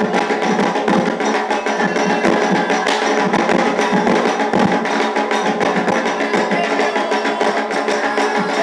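Candomblé ritual drumming: atabaque hand drums playing a fast, steady rhythm with sharp percussive strikes.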